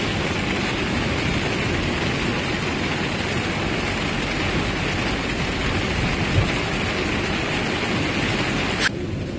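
Steady noise of heavy rain on a moving van, mixed with tyres hissing on a wet road. A little before the end the higher hiss drops away suddenly.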